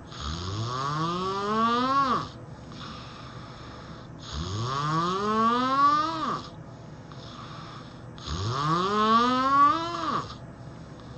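Person snoring heavily: three long snores about four seconds apart, each rising in pitch over about two seconds, with quieter breathing between them.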